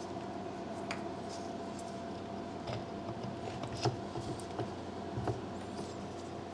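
Scattered light clicks and knocks of a small two-stroke chainsaw carburetor and its linkage being worked off the mounting studs by hand, over a steady faint hum.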